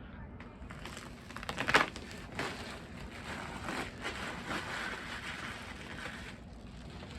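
Crinkling and rustling of a vinyl LP's packaging being handled and opened, with one loud sharp crackle a little under two seconds in.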